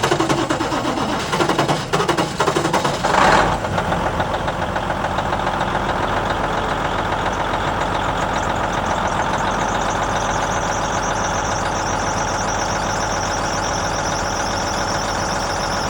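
Cummins N14 inline-six diesel in a Versatile 2360 tractor, just started, running unevenly for the first few seconds and then settling to a steady run. The number 5 injector has just been replaced. A high whine builds in from about ten seconds in.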